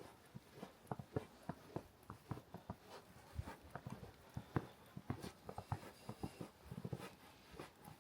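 Footsteps crunching through fresh snow, a dense run of small irregular crunches and squeaks.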